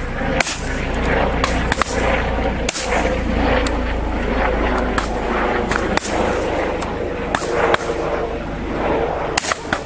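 Shotguns firing at driven partridges, a dozen or more shots irregularly spaced, some close together, from more than one gun. Heavy wind rumble on the microphone runs under the shots.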